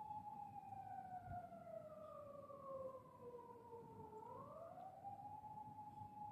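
A siren sounding faintly as a steady tone. About a second in, its pitch slides slowly down for about three seconds, with a second, higher tone falling alongside, then rises quickly back to its steady pitch.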